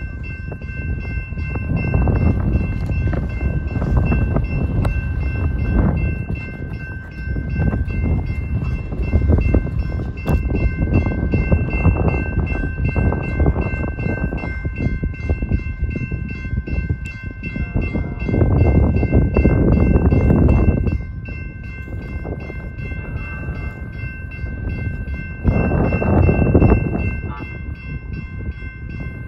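Railroad crossing warning bell ringing steadily with fast repeated strikes as the flashers run and the gates are down, over heavy wind rumble on the microphone that swells in gusts.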